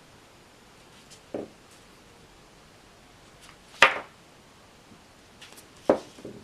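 Small parts being handled and set down during bench work: four separate sharp clicks and knocks, the loudest about four seconds in, a second strong one about two seconds later.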